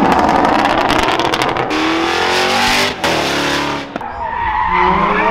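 Infiniti coupe revving hard as it pulls out, its tyres spinning and skidding sideways, with wavering tyre squeal in the second half.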